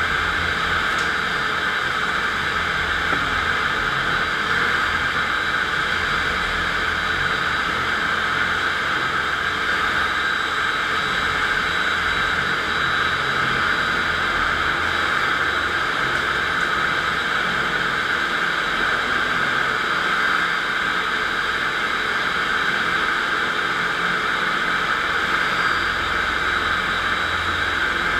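FastPrep concrete floor grinder running steadily, its electric motor driving 16-grit diamond grinding plates across a concrete floor, a constant hissing grind.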